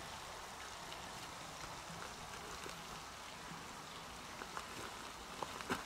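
Faint, steady outdoor hiss, like light rain or wind in the trees, with a few faint clicks near the end.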